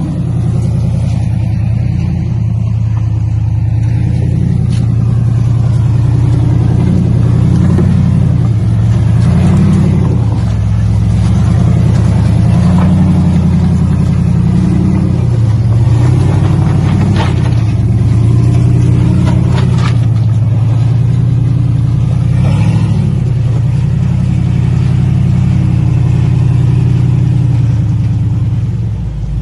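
Off-road rig's GM LS V8 engine running under load, revving up and dropping back again and again as it crawls. A few brief knocks come about two-thirds of the way in.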